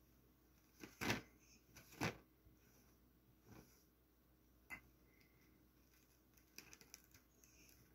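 A cat nosing and pawing at bedsheets around a plate: very quiet soft rustles and sniffs, with two short louder ones about a second apart, then a single click and a few faint clicks near the end.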